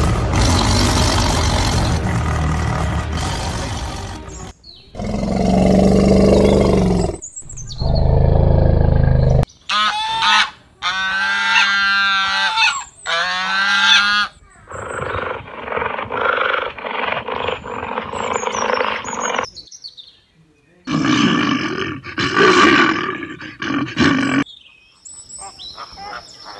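A run of animal calls: a tiger roaring and growling through the first several seconds, then domestic geese honking in loud repeated calls, followed by more flock calling.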